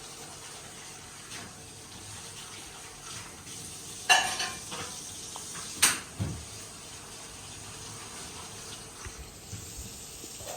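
Steady rush of running water, like a tap into a sink, with one brief loud clatter about four seconds in and a sharp click near the middle.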